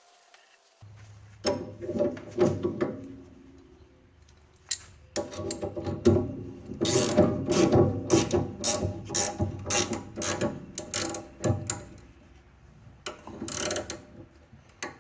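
Ratchet wrench clicking in rapid runs, in three bursts with short pauses between, the longest lasting several seconds.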